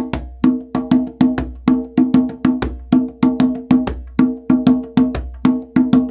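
Conga drum played by hand in a steady repeating rhythm, about three to four strokes a second, its open tones ringing with a clear pitch.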